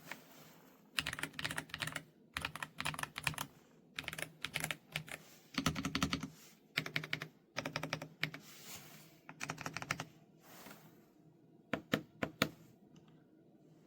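Typing on an Ajazz AK820 Pro gasket-mounted mechanical keyboard. Runs of rapid keystrokes, each about a second long, clatter with short gaps between them, and a few single key presses come near the end.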